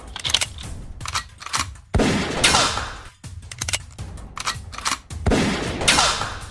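Gunfire sound effects: a string of sharp shots in quick runs and two heavy booming hits, about two and five seconds in, each followed by a falling tone.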